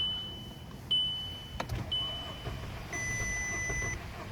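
Car dashboard warning chimes from a VW Golf Mk5: a high ding about once a second, three times, each dying away. Then a click, and near the end a different, lower steady beep lasting about a second.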